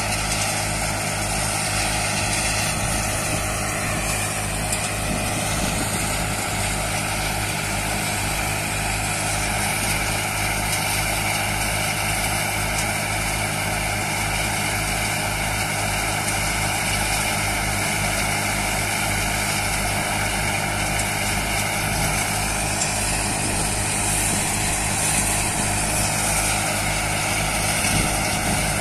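Mahindra Arjun 555 DI tractor's diesel engine running steadily under load, driving an NVT multicrop thresher that hums as it threshes crop fed in by hand. A low throb repeats about twice a second.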